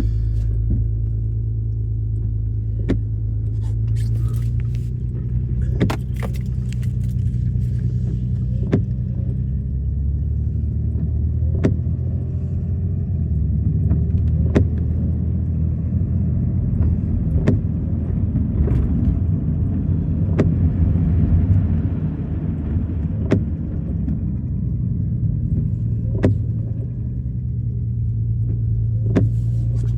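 A car driving, heard from inside: a steady low engine and road rumble, with a sharp click about every three seconds.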